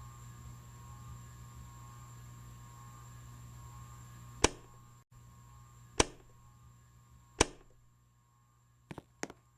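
Electric fan motor humming steadily, with sharp switch clicks about four and a half, six and seven and a half seconds in and a quick double click near the end. The hum drops a step after each click, as though the speed is being switched down and then off.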